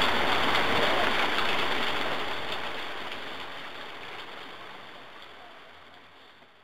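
Steady rain, an even hiss of falling water, fading out gradually to near silence.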